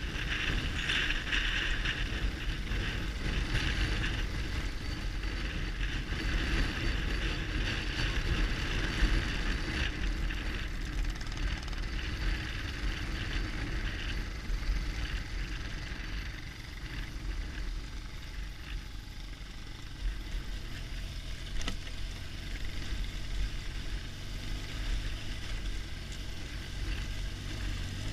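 BMW R1200GS Adventure's flat-twin boxer engine running as the bike rides along a rough dirt track, with wind rumbling on the microphone. A little louder in the first ten seconds or so, then easing off.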